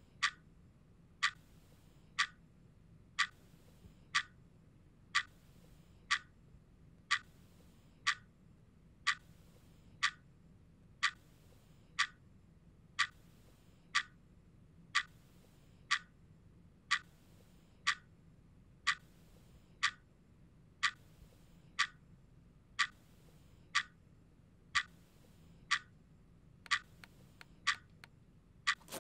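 A clock ticking about once a second, the ticks coming quicker near the end.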